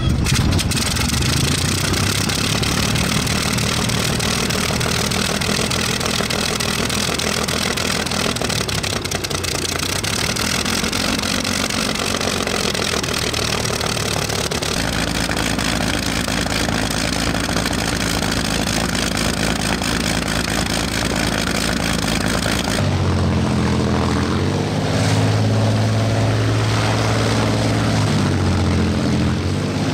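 Messerschmitt Bf 109's V12 piston engine running just after it has caught, with a loud, rough note. About three-quarters of the way through the sound shifts abruptly, and the engine's pitch then rises and falls as the revs change.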